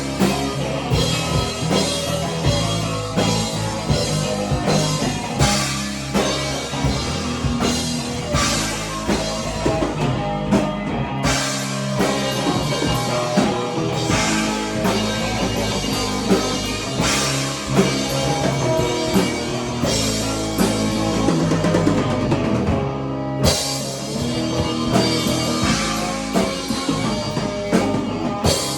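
Rock music with a drum kit and guitar, playing steadily with brief breaks about 11 and 23 seconds in.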